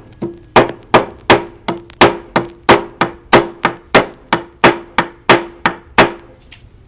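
A hammer striking in a steady rhythm, about three blows a second, with a short ring after each blow; the blows stop about six seconds in.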